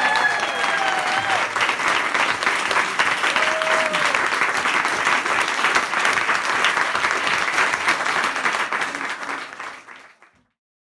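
Audience applauding, with a few voices calling out near the start and once more a few seconds in; the applause fades out near the end.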